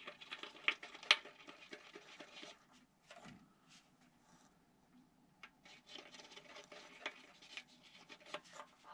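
Toothpick scratching and clicking inside the hinge slots of a model airplane control surface as the pockets are rubbed damp, in two spells of quick small scratches with a quieter pause of a few seconds between.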